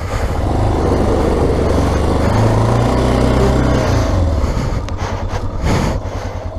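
Yamaha XT600E's single-cylinder four-stroke engine running at low revs, opened up about half a second in and eased back after about four seconds.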